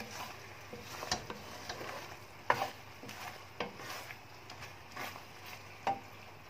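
A wooden spatula stirring thick coconut milk and sugar syrup in a pan, with about five brief, irregular scrapes against the pan. The mixture has cooked down to a sticky, glue-thick consistency.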